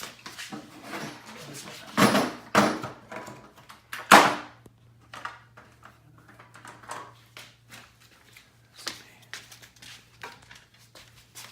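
Clicks, knocks and clattering of parts and hand tools being handled at an open truck door, loudest about 2 and 4 seconds in. A faint steady hum runs underneath from about halfway through.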